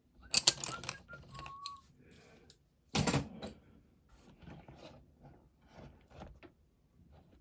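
Small clicks, knocks and rustles of a diecast model car and hand tools being handled on a workbench, with a brief squeak early on and one sharp knock about three seconds in.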